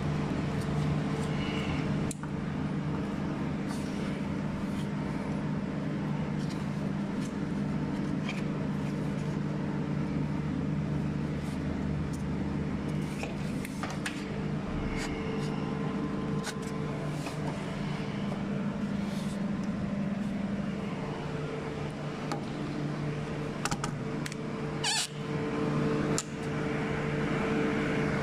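A steady low mechanical hum, with scattered light clicks and knocks from hands and tools working around the radiator fan and wiring.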